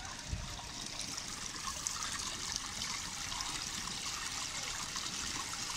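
Small artificial waterfall in a rockery stream, water trickling and splashing steadily over stones.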